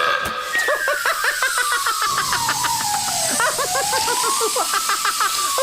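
Cartoon sound effect: a whistle-like tone slides slowly down, back up, and down again, over a fast run of short warbling blips, about five a second.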